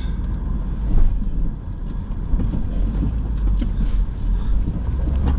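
Low rumble of a 2019 Honda Passport crawling over a rocky dirt trail, with scattered knocks and rattles from the rough ground, the strongest about a second in.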